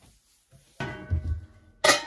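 Kitchenware being set down on a counter: a ringing clatter about a second in, then a sharp clink near the end that rings on briefly.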